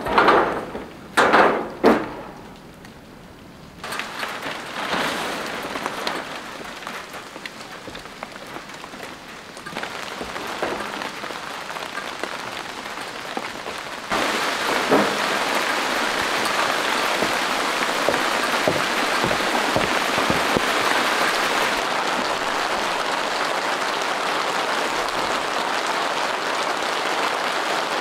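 Rain falling in a storm, at first lighter and then, about halfway through, a steady downpour. A few loud knocks come at the very start.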